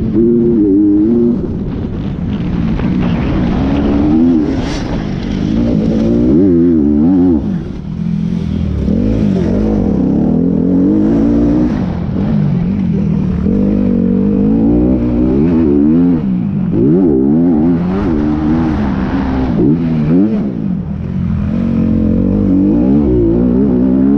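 Motorcycle engine, its pitch rising and falling again and again as it accelerates and eases off, over a steady rush of noise.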